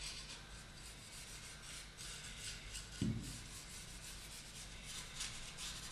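Small brush strokes of varnish on carved wood: the bristles rub and scratch in short, irregular strokes. A brief soft knock comes about three seconds in.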